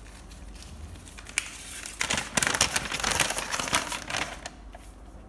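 A folded paper instruction leaflet being handled and unfolded, crinkling and rustling for about two and a half seconds in the middle, after a single sharp click.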